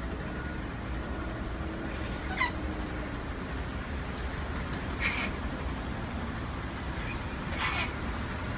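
Wild parrots giving a few short, harsh calls about two, five and seven and a half seconds in, over a steady low rumble.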